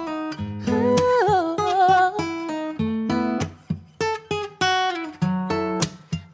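Acoustic guitar playing a song intro, picked notes and chords ringing one after another, with a short wordless sung line that wavers and glides down about a second in.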